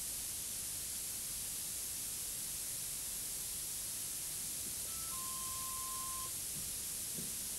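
Steady hiss from an old videotape recording. About five seconds in comes a short electronic beep, then a slightly lower steady tone held for just over a second.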